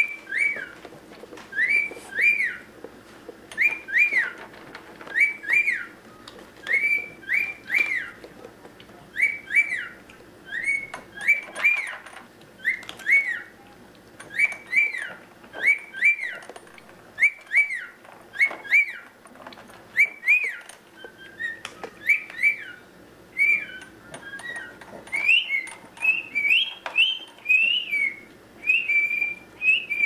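Cockatiel whistling a repeated two-note call, each note rising then falling, a pair about every second and a half; near the end the whistles climb higher and run together faster. A few faint clicks sound in between.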